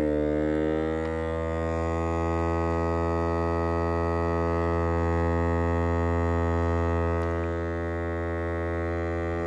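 Vacuum sealer's pump running, drawing air out of the bag with a steady droning hum; its pitch sinks slightly in the first second, then holds.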